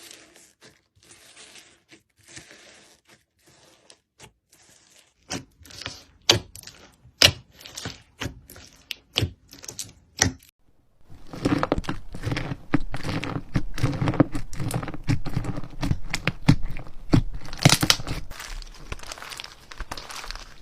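Slime being worked by hand, making sticky crackling sounds: faint at first, then sharper separate clicks from about five seconds in, then a dense, louder run of crackling from about eleven seconds in.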